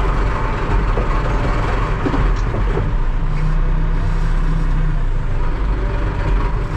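Diesel engine of a TEREX TLB-815 backhoe loader running steadily, with a low steady tone added for about two seconds midway.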